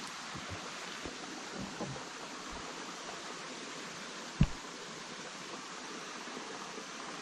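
Steady rush of a nearby creek, with a few soft low knocks and one sharp low thump about four and a half seconds in.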